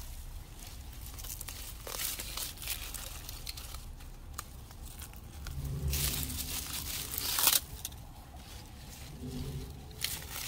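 Hand weeding among lily-of-the-valley plants: weeds torn up by hand and a homi hand hoe worked through dry soil, giving rustling, crackling and small scrapes. A louder burst of tearing and rustling comes about six to seven and a half seconds in.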